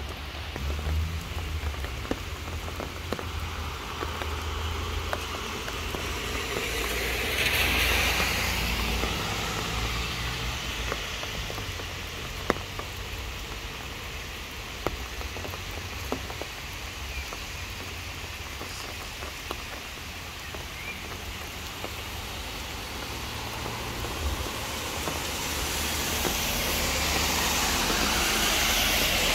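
Steady summer rain falling on trees, grass and pavement, with the hiss of car tyres on the wet road swelling as a vehicle passes about a quarter of the way in and building again toward the end. A few sharp drips stand out.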